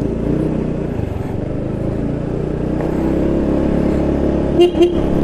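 Motorcycle engine running while riding, its pitch and loudness rising gradually, with road rumble on the microphone. Two short loud beeps come close together near the end.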